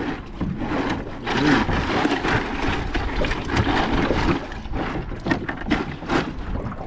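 Irregular knocks and clatter, as of fish and gear being handled in a small aluminium fishing boat, over a steady rushing noise.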